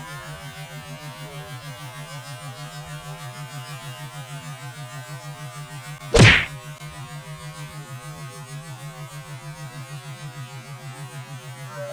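Lawn tractor engine running steadily, a low hum with a fast even pulse, and one sharp whack about six seconds in.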